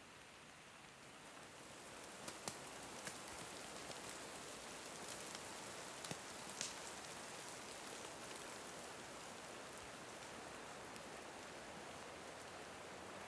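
Faint, steady patter of light precipitation in a snowy forest, growing a little louder over the first two seconds. A few sharp ticks stand out between about two and seven seconds in.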